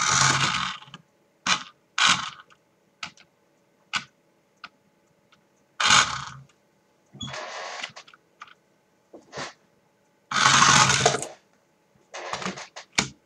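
A toy radio-control car's small electric drive motor and gears whirr in short spurts, about eight of them, each up to a second long, as the car is driven in stops and starts. Sharp clicks and clacks come between the spurts.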